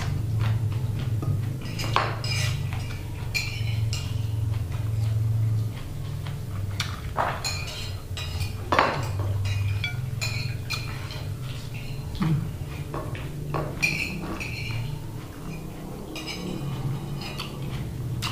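Someone eating with their hands: chewing and mouth sounds, with scattered clinks and light knocks of plates and bowls as food is picked up. A steady low hum runs underneath.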